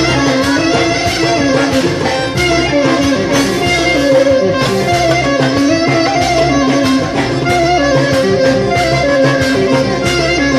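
Greek traditional music played live on clarinet, bouzouki and hand percussion: a winding clarinet melody over plucked bouzouki and a steady drum beat.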